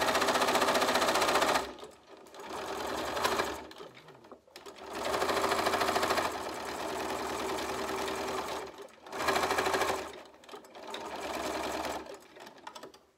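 Bernina Aurora 440 QE sewing machine stitching through a thick coiled fabric-rope bag, tacking its end in place. It runs in about five bursts that start and stop, the longest from about five to nine seconds in.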